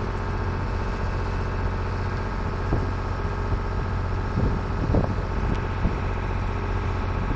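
Sailboat's engine running steadily under way, a constant low drone, with a few light knocks around the middle.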